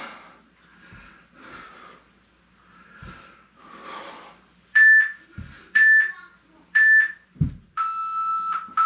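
Heavy, breathy exhaling during an ab exercise, with a few soft thuds. Then an interval timer counts down with three short beeps about a second apart and a long, lower beep near the end, marking the close of the work interval.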